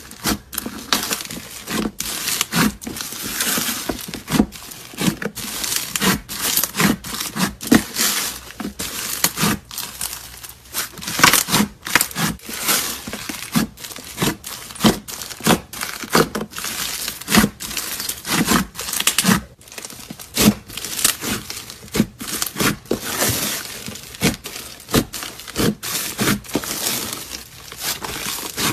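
Thick, textured slime being pressed, poked and kneaded by hand, giving an irregular stream of short crackles and pops.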